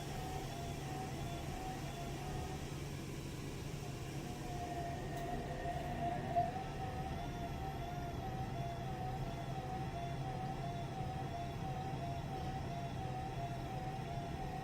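Washing machine running, a steady low hum under a whine that wavers up and down in a regular pattern. There is one short click about six seconds in.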